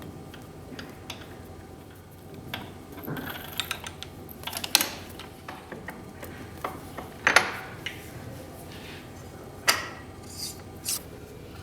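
Steel being worked by hand at a South Bend metal lathe: scattered sharp metallic clicks and scrapes of tools against the workpiece, loudest about five, seven and ten seconds in, over a faint steady hum.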